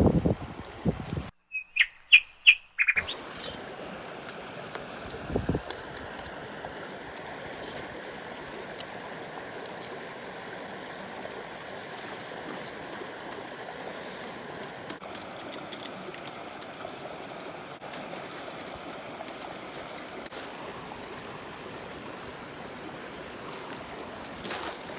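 River water running steadily. About two seconds in, a bird calls in a quick run of about five chirps.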